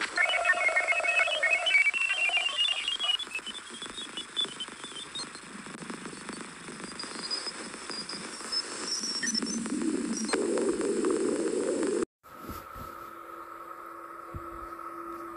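Sonified spacecraft space recordings: a run of short chirping tones climbing steadily in pitch over about five seconds over a hiss, then a rushing noise. About twelve seconds in it cuts off abruptly and a different recording starts with two steady droning tones.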